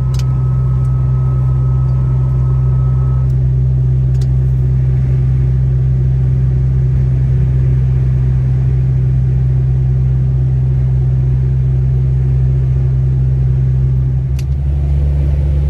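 Steady low engine and road drone heard from inside a vehicle's cabin while it drives along a highway. A thin steady tone sounds for the first three seconds, and the drone changes pitch about a second before the end.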